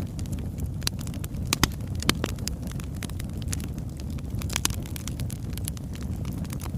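Wood fire burning, with irregular sharp crackles and pops over a steady low rumble. Two pops stand out as louder, about one and a half and two seconds in.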